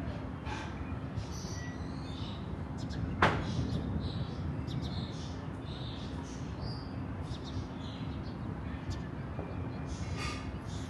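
A single sharp thunderclap crack about three seconds in, dying away into a short rumble, over a steady low rumble of outdoor air with birds chirping now and then.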